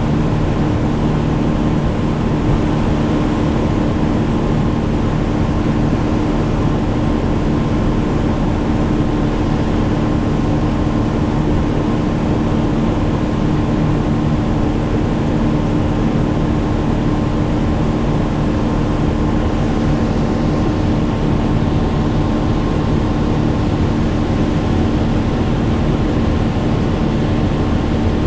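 An engine running steadily at constant speed: an unbroken drone with a few fixed tones over a low rumble.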